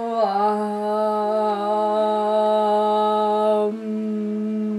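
Meditative humming, mantra-like: two long held notes together, the higher one dipping slightly at the start and stopping about three-quarters of the way through while the lower hum carries on steadily.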